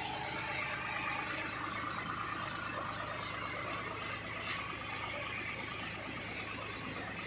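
Rippa mini excavator's small diesel engine idling steadily.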